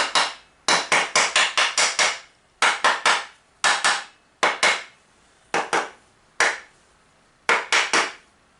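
Rubber mallet tapping an ATV engine's side case cover into place over its dowel pins, in bursts of two to seven quick taps with short pauses between.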